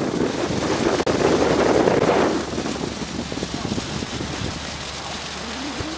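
Wind buffeting the microphone, heavy for about two seconds and then easing to a steadier rush.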